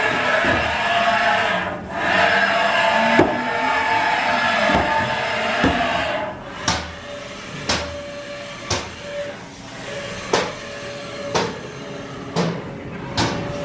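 Haas VF9 CNC machining center running with a steady hum and whine for about six seconds, then cutting out, after which a series of sharp knocks comes about once a second.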